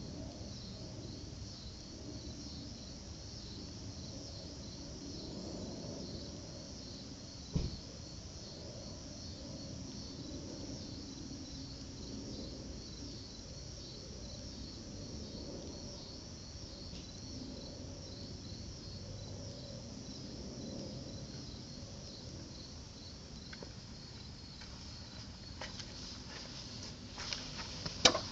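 Crickets chirping steadily in a fast, even pulse. There is one sharp click about a quarter of the way in and a cluster of clicks and knocks near the end.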